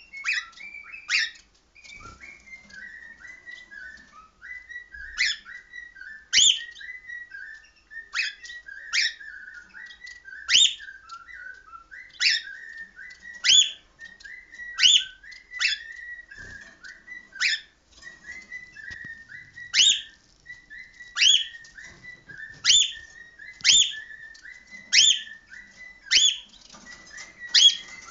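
Female cockatiel whistling: a steady warbling chatter with loud, sharp calls repeated about every second and a half.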